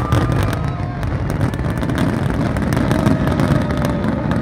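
Fireworks display going off as a dense barrage: overlapping deep booms with many sharp cracks throughout.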